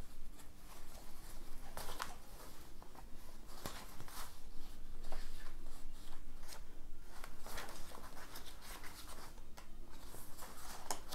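Pages of old paper pattern sheets rustling and flapping as they are turned by hand, one after another in short strokes.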